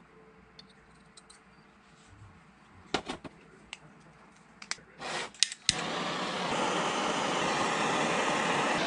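Handheld gas torch lit with a few sharp clicks of its igniter about five seconds in, then burning with a steady, loud hiss as it heats a copper fitting for soldering. Before that, light clicks of copper fittings and a solder spool being handled.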